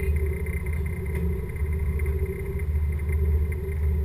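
Diesel engines of a 56-foot Post sportfishing yacht running steadily at low speed, a deep even rumble with a faint hum above it.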